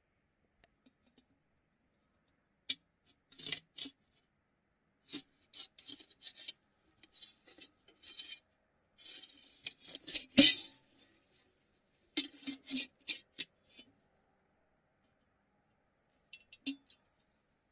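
Plates being handled: irregular clusters of clinks, scrapes and rattles. The loudest clatter comes about ten seconds in, and a last few clinks come near the end.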